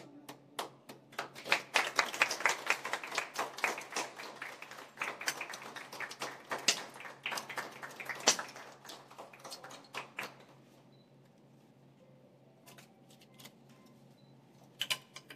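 A small group of people clapping by hand. It builds up about a second in, dies away about ten seconds in, and a few scattered claps follow near the end.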